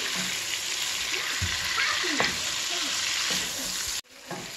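Shrimp and grated ginger sizzling in hot oil in a frying pan while being stirred with a wooden spoon. The sizzle is steady and cuts off suddenly about four seconds in.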